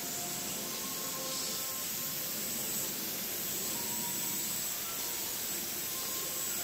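Steady outdoor background hiss with a thin, constant high whine and a few faint, brief tones in the middle range.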